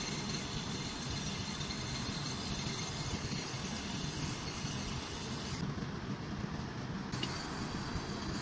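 Gas brazing torch burning with a steady hiss as copper refrigeration tubing is brazed. The upper part of the hiss thins out for about a second and a half past the middle.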